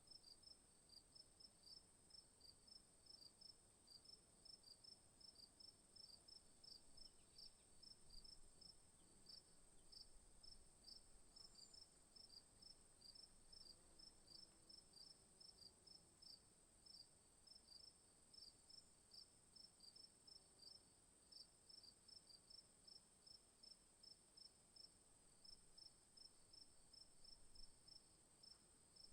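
Crickets chirping: a steady high-pitched trill with short chirps repeating evenly, about three a second, beneath it.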